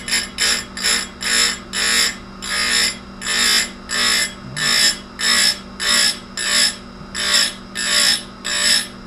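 Tecomec Jolly Evo chainsaw chain grinder: its spinning wheel is brought down onto the chain again and again, giving short hissing grinds of metal about twice a second over the steady hum of the grinder's motor.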